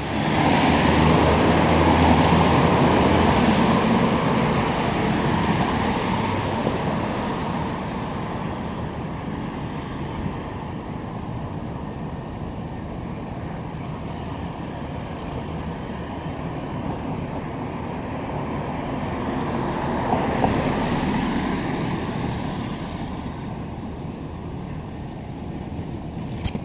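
Road traffic on a city street. A vehicle passes close by right at the start, and its tyre and engine noise fades over several seconds. A second vehicle swells up and passes about twenty seconds in.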